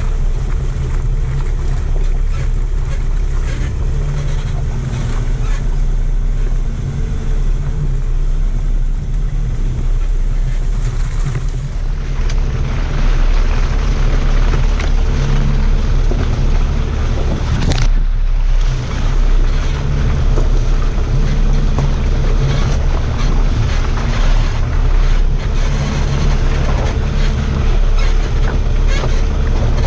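A 4x4 vehicle's engine running steadily at low speed on a muddy track, with wind noise on the microphone. The wind and road noise grows louder about twelve seconds in and dips briefly a little after halfway.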